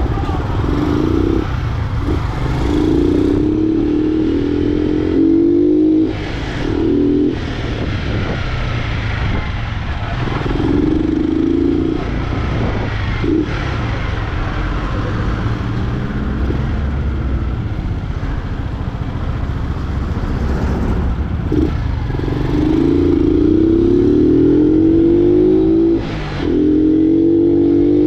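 Single-cylinder four-stroke engine of a 2007 Honda CG Fan 125, run without its air filter through a baffle-stripped 'vareta' exhaust, accelerating hard. Its revs climb again and again, broken by short dips as it shifts gears.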